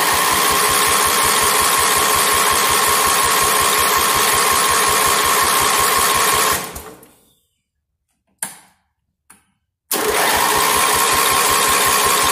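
Electric starter cranking the Craftsman 12 hp lawn tractor engine on choke, turning it over steadily but without firing; the cranking runs about six and a half seconds and winds down, two short bursts follow, then it cranks again from about ten seconds in. The engine won't catch, which the owner, finding good spark, puts down to a fuel problem.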